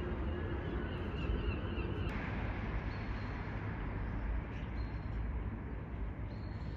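Outdoor ambience: a steady low rumble, with birds calling a few times.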